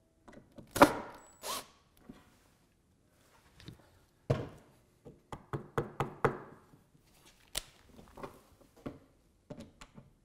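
Hand tapping the wooden fence of a table-saw crosscut sled: a series of short knocks, loudest about a second in, nudging the loosened fence square to the blade.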